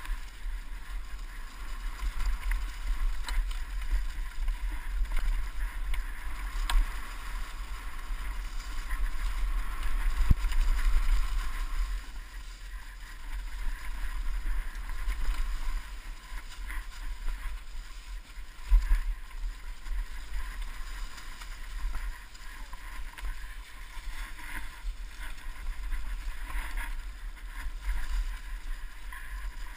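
Wind buffeting a helmet-mounted action camera's microphone as a downhill mountain bike rolls fast over a trail of dry fallen leaves, with tyre and leaf noise and a few sharp knocks from bumps.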